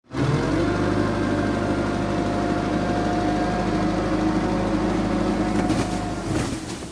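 Truck engine idling steadily, stopping suddenly about six seconds in.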